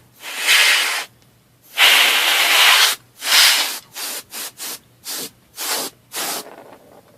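Air being blown in repeated hissing blasts to clear dust out of an opened laptop's insides: two longer blasts, then a run of short puffs.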